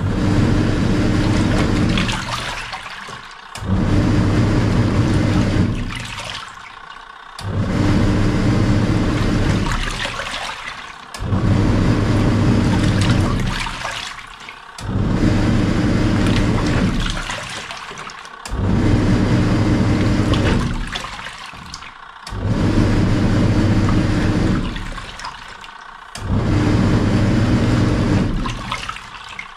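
Samsung SW-655P twin-tub washing machine's wash tub agitating: the pulsator motor hums and churns the water and clothes in runs of about three seconds, stopping briefly between each, about eight times in a row, as the wash action turns one way and then the other.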